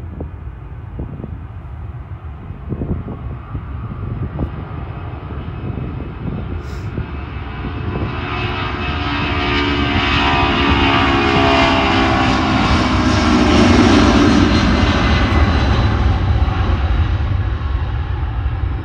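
Delta Boeing 757-200's twin jet engines at takeoff power on its takeoff roll, growing louder as it passes, loudest about fourteen seconds in, then starting to fade.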